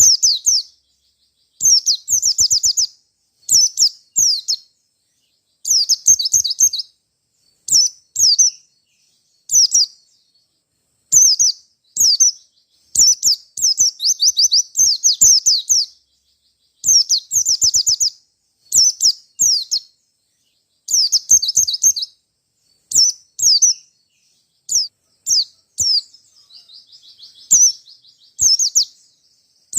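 White-eye (pleci) singing: short phrases of rapid, high-pitched chirps, one after another about every second with brief pauses between, and a softer twittering passage near the end.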